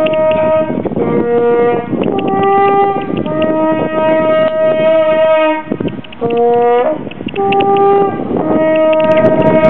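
French horn playing a slow tune of long held notes, with a short break about six seconds in. It is a call that brings the sika deer running to be fed.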